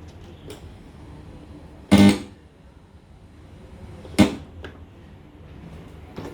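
Korg M50 synthesizer keyboard sounding two loud plucked-sounding notes with a sharp attack, about two seconds apart, each dying away quickly over a low steady background noise.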